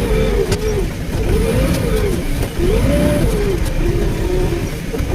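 A heavy excavator's diesel engine running under hydraulic load, its pitch repeatedly rising and falling about once a second as the machine works.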